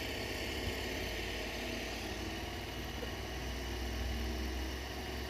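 Creality Ender 3 V3 Plus 3D printer running its startup self-check: a steady whirr of fans and motors with a low hum that grows stronger a little past the middle.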